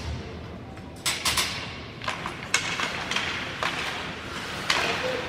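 Ice hockey play on the ice: hockey sticks clacking against the puck and each other, with skates scraping the ice. The sharp clacks come irregularly, a few about a second in, then more often after about two seconds.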